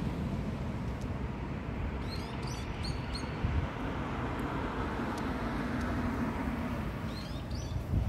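A steady low rumble, with a bird giving a few short, high chirps about two seconds in and again near the end.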